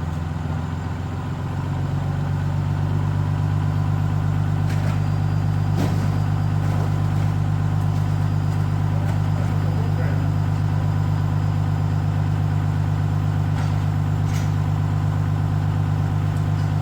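An engine idling steadily, a little louder after the first two seconds, with a few faint knocks over it.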